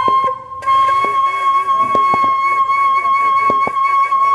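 Background music: a flute-like wind instrument holding one long, steady high note, with short knocks at uneven intervals.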